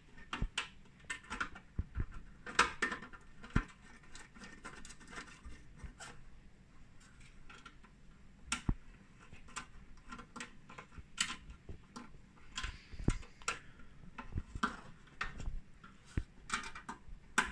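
Small metal screws being picked from a palm and started by hand into the amplifier output connector on a metal screening can: irregular light clicks, scrapes and rattles.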